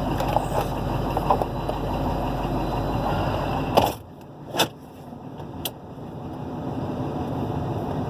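Ford 6.0 Power Stroke V8 turbo-diesel truck under way. The engine and road noise is steady, drops off suddenly about four seconds in with a few sharp clicks, then builds back up gradually.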